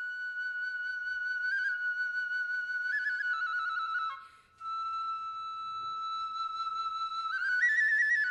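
Japanese bamboo transverse flute, as played for kagura, sounding long held high notes ornamented with quick trills and grace-note steps. It breaks off for a breath about four seconds in, resumes on a slightly lower held note, and climbs higher near the end.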